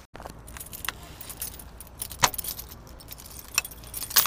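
Metallic jingling and clicking, a run of sharp clicks with louder knocks about two seconds in and again near the end.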